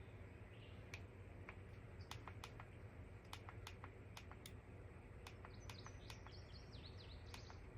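Near silence: faint room hum with scattered light clicks and, in the second half, faint high bird chirps.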